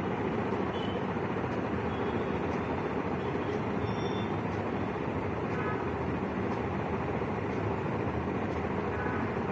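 Steady background noise, an even hiss and rumble with no distinct events, and a few faint short high tones about four seconds in.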